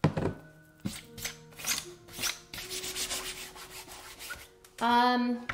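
Irregular scraping and rubbing strokes of hands and crafting tools on a tin tray and its adhesive transfer, followed by a short voiced hum near the end.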